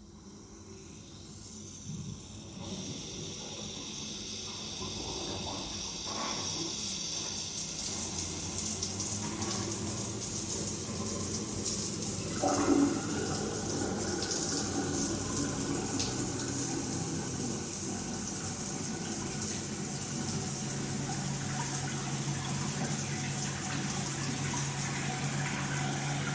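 Multifunction shower system turned on and spraying water, the flow building up over the first few seconds to a steady rush. The sound changes about halfway through, and from about two-thirds in a steady low hum joins the water: the humming the owner reports at the shower valve when the body jets are used.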